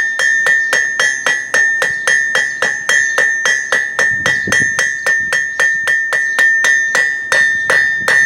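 Hammer blows on hot steel at the anvil in an even, quick rhythm, about three and a half a second, each strike with a bright ring from the anvil. The bar is being rolled while it is hammered, rounding its tapered end from square to round.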